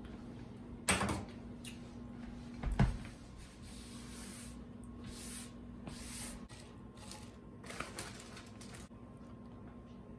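Kitchen handling sounds: scattered knocks and clicks of containers, lids and utensils being moved and set down, the loudest knocks about one and three seconds in, over a faint steady low hum.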